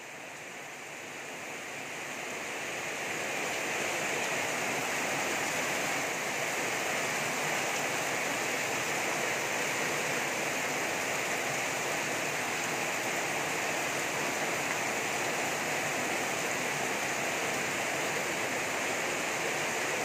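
Torrential rain pouring down onto a flooded street and tiled roofs: a dense, steady hiss of rain and splashing water that grows louder over the first few seconds, then holds steady.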